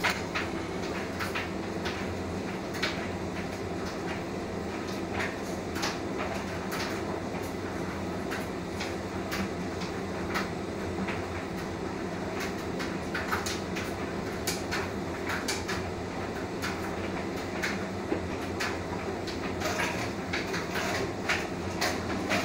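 Hotpoint tumble dryer running: a steady motor and drum hum as the clothes tumble, with irregular light clicks and knocks from the load hitting the drum.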